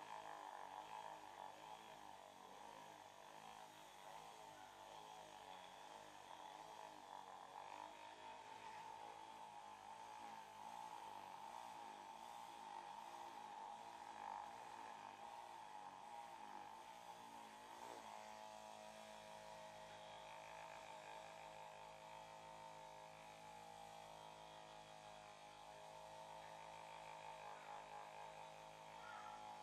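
Faint, steady electric hum with a buzz. About eighteen seconds in it changes to a steadier, more even tone.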